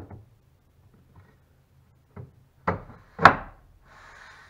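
Wooden knocks as a plywood board is set down and pressed into place on a wooden boat's framing: a few knocks, the loudest two close together about three seconds in, then a short scraping rub near the end.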